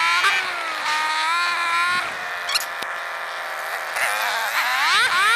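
Honda Magna's V4 engine under way, its pitch climbing as it accelerates at the start, then holding steady. About four seconds in it drops as the bike slows, then climbs steeply as it accelerates again.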